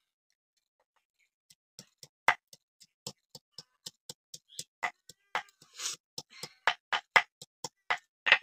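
Stone pestle (nora) pounding ginger on a flat stone grinding slab (shil): sharp stone-on-stone knocks, about three a second, starting about a second and a half in, with a brief scrape near the middle.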